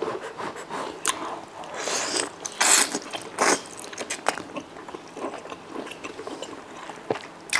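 Close-miked eating: wide noodle strips in chili oil being slurped in and chewed. It comes as a run of short, sharp slurps and wet mouth clicks.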